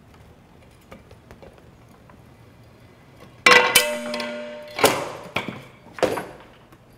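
Homemade Rube Goldberg machine parts at work: a few faint ticks, then about halfway through a sudden loud snap with a brief ringing tone, followed by three more loud knocks about half a second apart.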